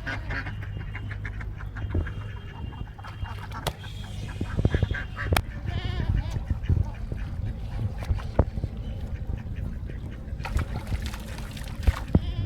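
Repeated quacking animal calls over a steady low rumble, with scattered short knocks.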